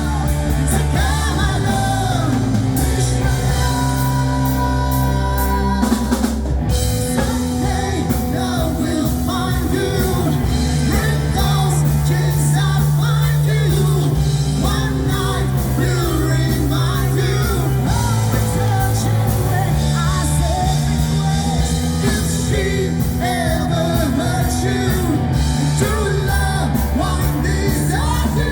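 Live band playing a pop-rock song, with a singer over drum kit, bass and guitar.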